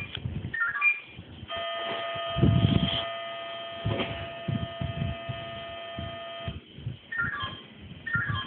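Fire-brigade radio pager alerting: short runs of stepped beeps, then a steady buzzing alert tone for about five seconds, then more stepped beeps near the end, over low rumbling noise.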